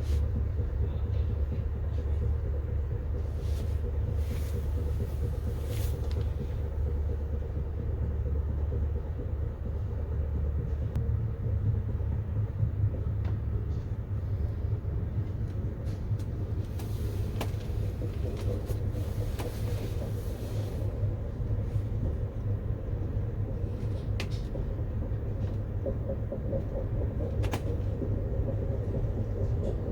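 Amtrak passenger train running: a steady low rumble with a few brief, faint clicks scattered through it.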